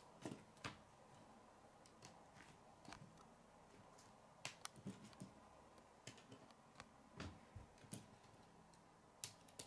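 Plastic K'nex rods and connectors clicking and tapping as pieces are handled and snapped onto the model truck's frame: faint, irregular sharp clicks, a dozen or so.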